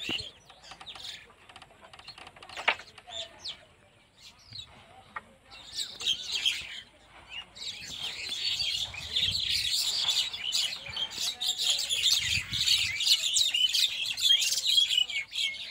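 Many small birds chirping, scattered at first and becoming a dense, continuous chorus from about halfway through. A single sharp click stands out about three seconds in.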